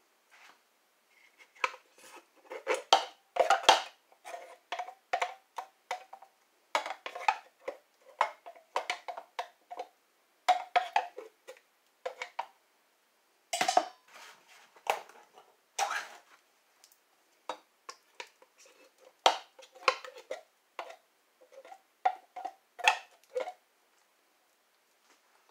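Wooden spoon scraping and knocking inside an opened metal soup can, scooping out thick condensed cream of mushroom soup: an irregular clatter of short scrapes and taps that stops shortly before the end.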